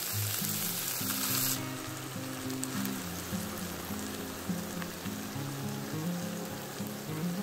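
Ground beef sizzling in a frying pan as its last water boils off. The sizzle is loud at first and drops to a softer hiss about a second and a half in, as tomato sauce is poured over the meat. Background music plays throughout.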